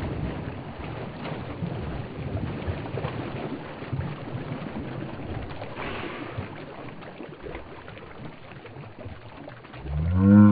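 Muddy water splashing and sloshing around a person standing waist-deep in a bog hole, the water running off him as he surfaces, slowly settling. Near the end, a loud roar-like call with a pitch that bends up and then down, lasting about a second.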